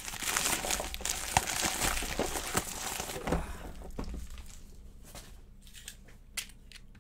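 Plastic mailer bag crinkling and tearing as it is pulled open and off a tin. The crinkling dies down after about four seconds, leaving a few faint clicks.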